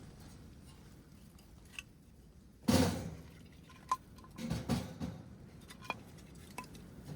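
Handling noises: scattered small clicks and taps, a sudden louder knock with a rustle nearly three seconds in, and a few more rustling knocks a little later.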